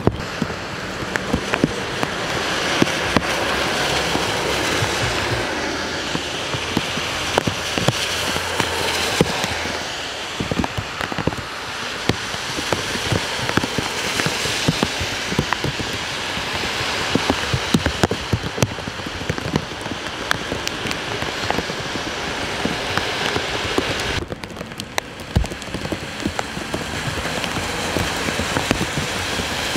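Steady rain falling on wet pavement, with many sharp drop impacts close by. Now and then a car swells past, its tyres hissing on the wet road.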